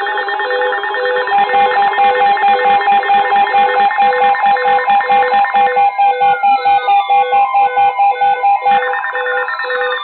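Several weather alert radios sounding their alarms at once, overlapping electronic beeps and tones, the loudest pulsing about three times a second, with falling sweeps near the end. They signal an incoming severe thunderstorm warning.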